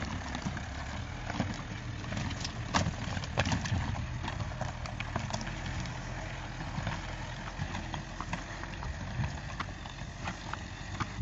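Loose rocks crunching and clacking irregularly on a rocky mountain track, over the steady low running of a Suzuki Jimny's Renault 1.5 dCi diesel engine crawling in low-range first gear.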